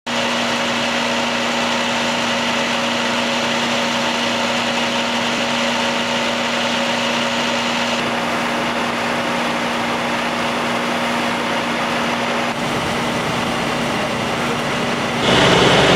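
An engine running steadily with a constant droning hum. The sound shifts slightly partway through and grows louder about a second before the end.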